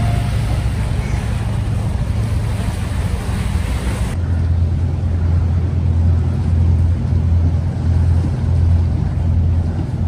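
Sea waves washing against rocks, with wind on the microphone. About four seconds in the sound changes abruptly to a duller, steady low wind rumble.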